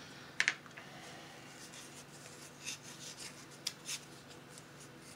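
Small plastic model-kit part being sanded by hand with sandpaper: faint, irregular scratchy rubbing strokes, with a few sharper clicks about half a second in and again around three to four seconds in.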